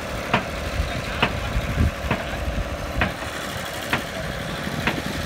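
An engine running steadily with a low rumble, and a sharp tick about once a second.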